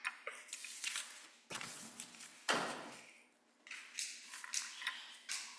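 Faint handling noises as a candle is lit with a handheld lighter: two scraping rasps, then a run of small clicks.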